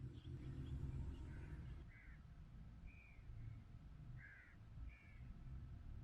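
Wind rumbling low, strongest in the first two seconds, with about five short bird calls scattered through it.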